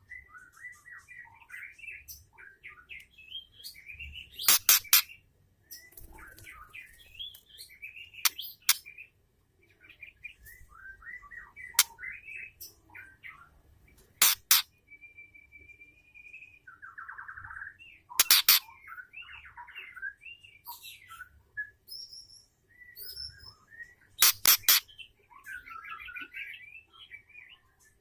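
Female white-rumped shama calling: a busy run of short chirps and warbled notes, with one brief level whistle about halfway through. Every four to six seconds a loud cluster of sharp clicks cuts in, the loudest sound here.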